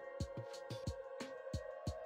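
Electronic background music: a beat of kick drum and hi-hat hits over held synth chords.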